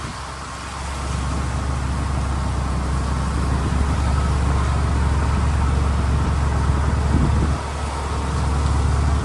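A moving vehicle heard from on board: a steady low rumble of engine and road noise, growing louder about a second in and dipping briefly near the end.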